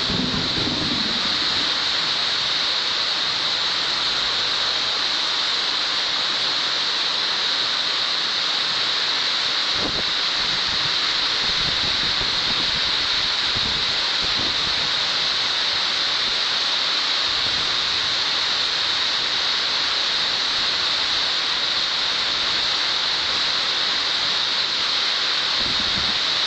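Heavy tropical rain pouring down in a steady, dense hiss.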